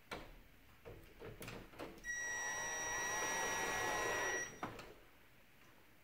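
Cordless drill/driver driving a screw into the plastic housing of a mini-split heat pump indoor unit: a few clicks as the bit is set, then a steady motor whine for about two and a half seconds that stops with a click.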